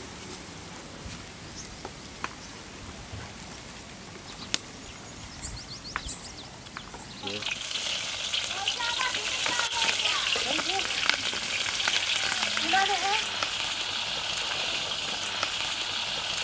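Green chilies dropped into hot oil in a large iron kadai start sizzling loudly and suddenly about seven seconds in, then keep frying with a steady hiss. Before that there is only a quiet stretch with a few faint clicks.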